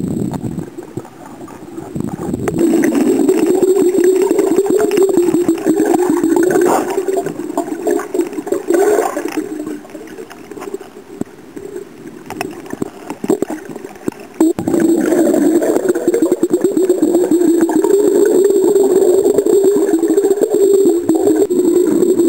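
Water churning and gurgling against an underwater camera's housing as it is carried through the sea while snorkeling. It eases off for a few seconds in the middle, then comes back abruptly about fourteen seconds in.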